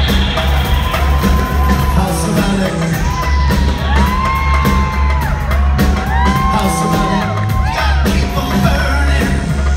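Live band music: a heavy pulsing bass line and drums under singing with long held notes that glide up and down, and some whoops.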